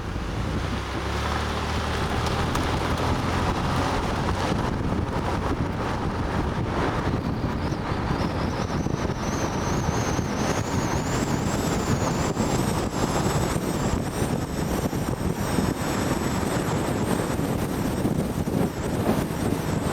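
Car engine running steadily, with wind on the microphone. A high whine slowly rises in pitch from about eight seconds in.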